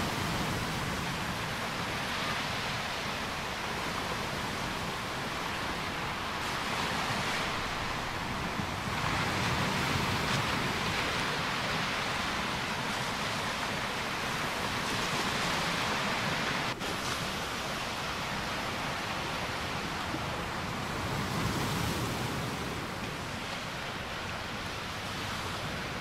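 Sea surf: waves breaking and washing up onto a beach in a steady rush that swells and eases every few seconds.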